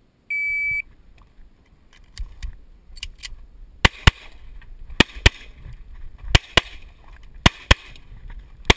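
Electronic shot timer gives one start beep, about half a second long, to begin a practical-shooting stage. After a couple of seconds of handling noise, a pistol fires in quick pairs (double taps): four pairs about a second apart, then one more shot near the end.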